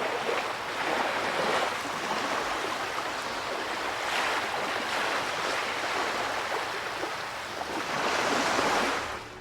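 Ocean waves rushing, a steady wash of sea noise that swells and eases about three times.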